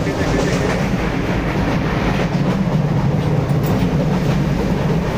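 Passenger train running, heard from inside the carriage: a steady, loud noise with a strong low hum.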